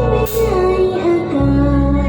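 A band playing a song with a woman singing the melody over steady bass notes, with a cymbal hit about a third of a second in.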